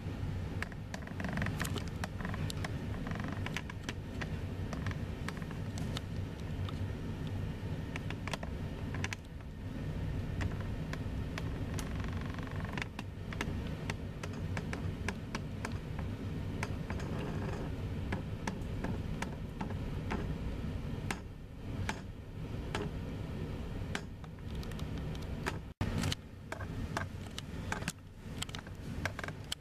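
A steady low rumble with many light, irregular clicks and taps over it, growing busier near the end.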